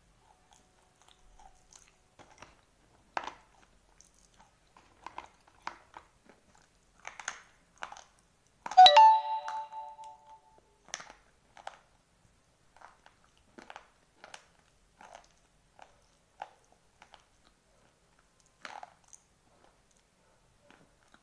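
Dry white slate pencils being bitten and crunched in the mouth: short, crisp crunches every second or so. About nine seconds in comes the loudest sound, a sharp crack followed by a ringing tone that dies away over about two seconds.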